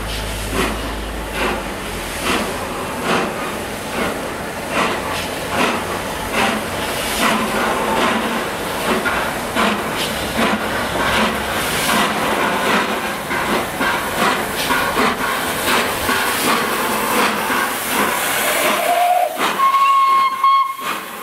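LNER Peppercorn A1 Pacific 60163 Tornado, a three-cylinder steam locomotive, working hard with a train: a steady run of exhaust beats over steam hiss. Near the end comes a brief whistle that goes up to one held note.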